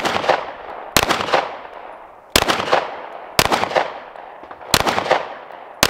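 Glock 19X 9mm pistol firing six single shots about a second apart, each trailing off in echo.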